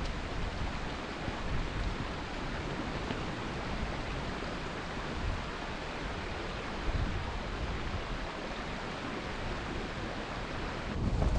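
Steady wind noise with no distinct events.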